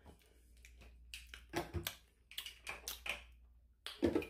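Lip smacks and clicks of the mouth after a drink of fruit smoothie, in a few short clusters, over a faint low hum.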